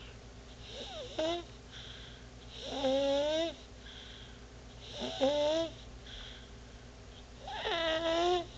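Baby snoring in a steady rhythm: four snores, one about every two seconds. Each is a short pitched sound that rises and then holds, with softer breathing between them.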